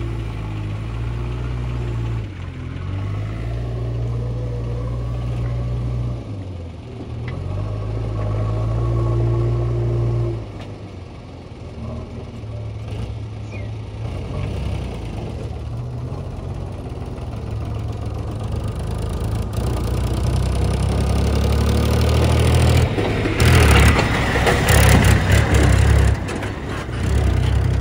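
JCB 3DX backhoe loader's diesel engine working under load, its pitch dipping and recovering several times as the loader scoops and lifts soil. Toward the end the engine grows louder, joined by a loud clattering rattle as a loaded tractor trolley moves close by.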